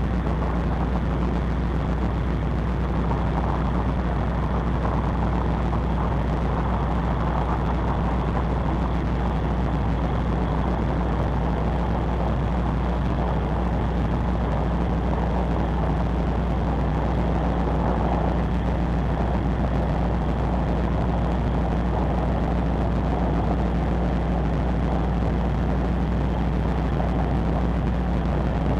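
Steady low drone of a large car ferry's engines and machinery heard on deck, with an even rushing noise over it.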